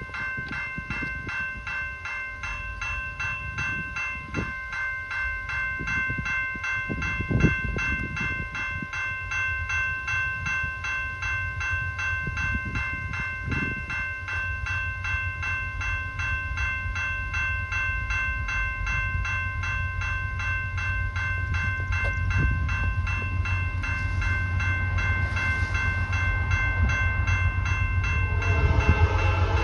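Electronic grade-crossing bell (General Signals Type 2) ringing in fast, even strokes as the crossing is activated. The low rumble of approaching diesel locomotives grows louder through the second half, and a train horn starts sounding near the end.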